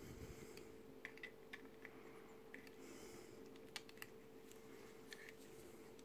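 Near silence, with faint scattered clicks and taps of small plastic model-kit parts being handled and pressed together during test-fitting, over a steady faint hum.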